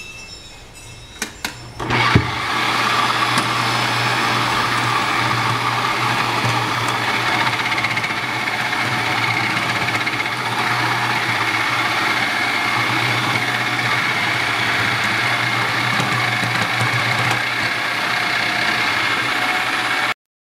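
Electric food processor starting up after a few clicks and running steadily with a constant hum, its slicing disc cutting potatoes into thin slices; the sound stops abruptly near the end.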